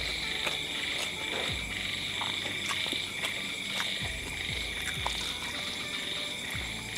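A chorus of frogs calling without a break in a high, steady drone, with a few short low croaks falling in pitch. Small clicks of someone eating close by are heard now and then.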